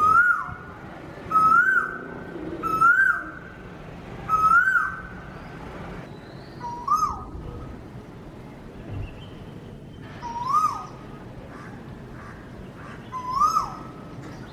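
A cuckoo calling again and again: seven short, clear notes, each sliding up and then falling. The first four come about every second and a half, and the rest are spaced further apart, over a faint steady hiss.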